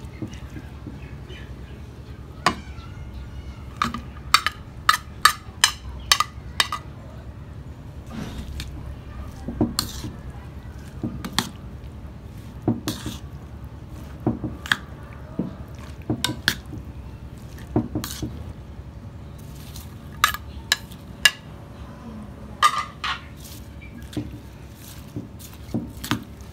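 Julienned radish and carrot being tossed by hand in chili paste in a ceramic bowl: wet squishing with irregular clicks and taps against the bowl. A steady low hum runs underneath.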